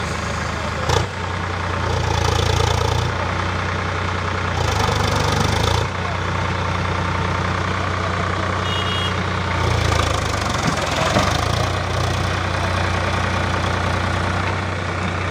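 HMT 5022 tractor's diesel engine working under load while stuck in mud, its note swelling louder several times as the throttle is opened to drive the rear wheels out. A single sharp knock sounds about a second in.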